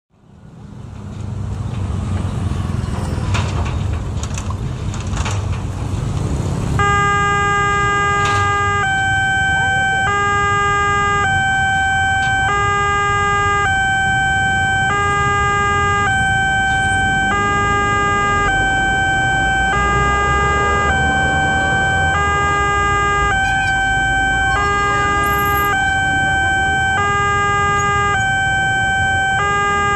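Railway level-crossing warning alarm from the crossing signal's loudspeaker, starting about seven seconds in: a loud electronic two-tone signal alternating between two chords about once a second, warning that a train is approaching. Before it comes on there is only a rumble of street traffic.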